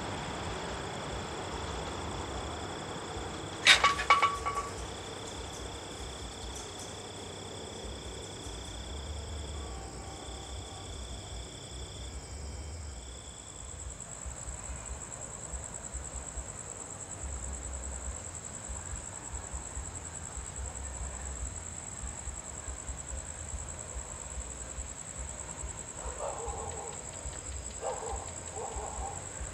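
Night insects trilling steadily: a high trill that breaks off a few times, then a higher, steady trill. A short, sharp sound about four seconds in is the loudest moment.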